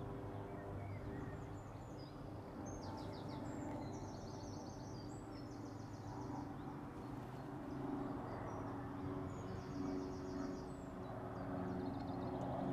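Quiet outdoor ambience by the water: short high-pitched bird chirps and trills come and go over a steady low hum.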